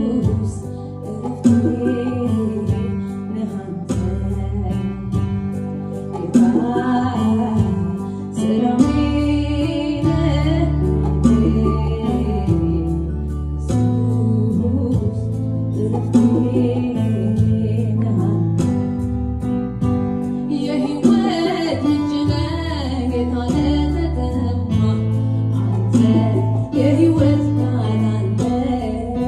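A woman singing a gospel song into a microphone, accompanied by an electronic keyboard playing a steady rhythm over sustained bass notes that change every few seconds.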